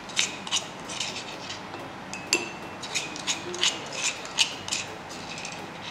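Plastic spoon scraping and knocking against a plastic bowl while scooping out mashed boiled egg: a run of short, irregular scrapes and clicks.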